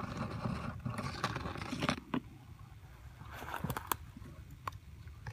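Blackberry bramble leaves and stems rustling and crackling as a hand pushes through them, with a few sharp clicks.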